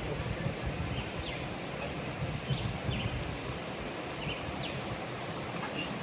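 Rainforest river ambience: a steady hiss of shallow water running over rocks, with short, high, falling chirps from birds scattered through it and a low rumble of wind on the microphone.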